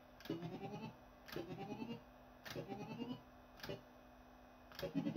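Barcrest Alphabet fruit machine playing a short rising electronic warble about once a second, five times, each beginning with a sharp click, as its win steps along the cash trail.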